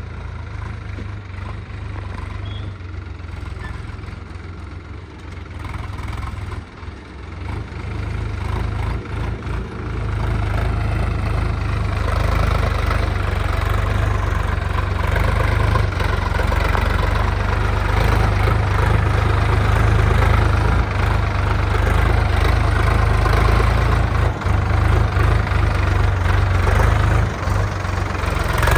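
Sonalika DI 42 RX tractor's diesel engine running steadily as it pulls a loaded trolley over a dirt track, growing louder about ten seconds in as it comes closer.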